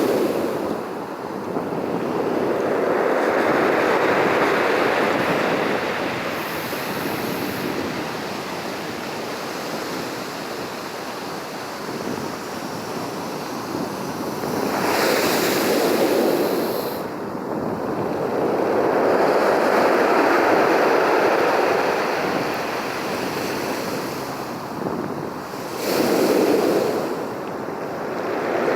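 Sea surf: waves breaking and washing in, the rush of water swelling and fading in long slow surges several times.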